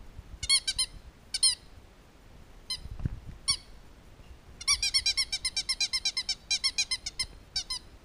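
Belgian Shepherd Tervueren puppies, about two weeks old, giving short high-pitched squeaks: a few single squeaks in the first half, then a fast run of about eight squeaks a second lasting over two seconds, with a short break partway, and a last pair near the end.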